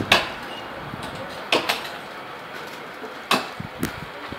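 Hand-held blade chopping into a coconut palm trunk: a sharp blow about every second and a half, some followed closely by a lighter second hit.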